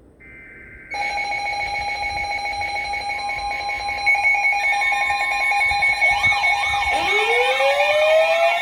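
Emergency Alert System tornado-warning alert: faint buzzing data bursts, then about a second in loud steady alert tones start at once. More tones layer in, fast warbling alarms join about six seconds in, and a rising siren-like wail starts about seven seconds in.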